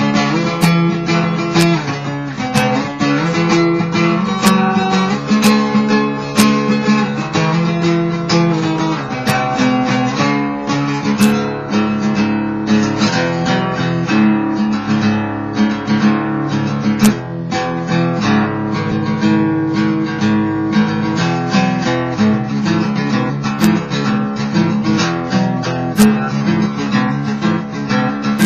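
Acoustic guitar played with a pick: a steady run of quick picked notes and strummed chords.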